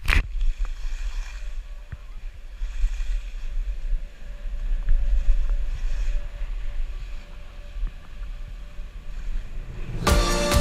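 Wind rumbling and buffeting on an action camera's microphone while skiing downhill, rising and falling in gusts. Music comes in near the end.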